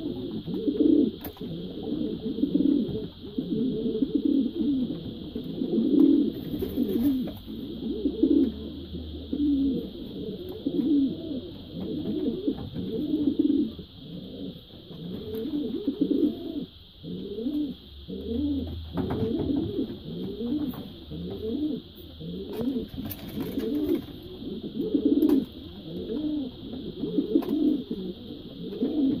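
American Show Racer pigeon cooing over and over in rolling, low bouts, the bow-coo of a bird displaying to its cage mate. A steady faint high hiss runs underneath.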